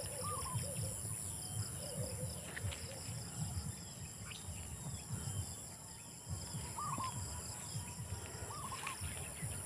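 Insects, crickets among them, trilling steadily in a high pitch, with a bird chirping faintly three times. A low, uneven rumble runs underneath.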